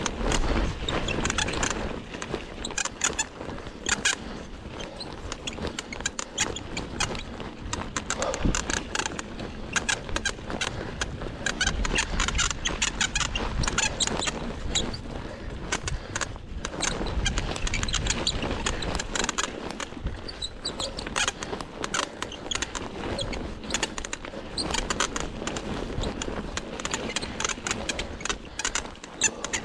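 Cannondale Scalpel mountain bike with a Lefty fork, rattling, clattering and squeaking as it is ridden down a bumpy trail, with tyres running over dirt. The constant squeaks are those of a bike that is in need of sorting out.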